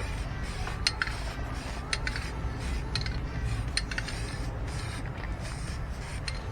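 Aerosol can of etching primer in use: sharp light metallic clinks about once a second over a faint hiss and a steady low rumble.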